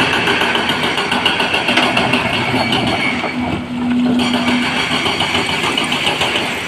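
Heavy diesel machinery running steadily. A low steady tone joins in for about a second and a half from about three seconds in.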